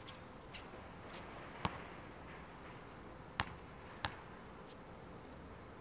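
A basketball bouncing a few times on an asphalt court: three sharp thuds, about a second and a half in, then twice more a little over halfway through, over a low background hush.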